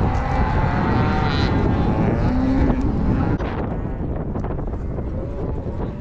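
Wind buffeting the microphone over a moving cattle herd, with a cow bawling about two and a half seconds in.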